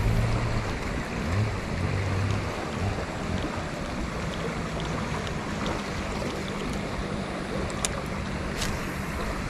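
Steady rush of a flowing river with wind buffeting the microphone, and two sharp clicks near the end.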